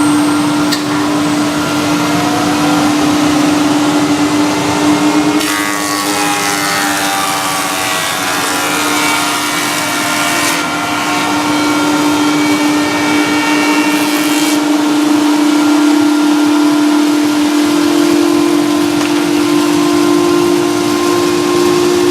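Four-sided planer thicknesser running with a loud, steady hum. From about five seconds in until about fourteen seconds in, a harsher rasping noise joins it as a board is fed through the cutterheads.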